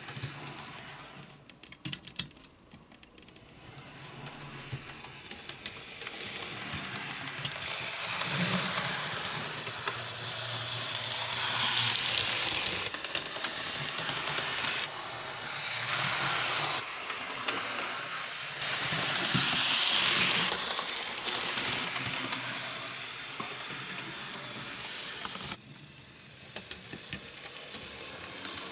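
OO gauge Sonic Models A5 tank locomotive running on model track, its motor and wheels giving a whirring hiss. It grows louder and quieter several times, quietest at first and loudest about two-thirds of the way through.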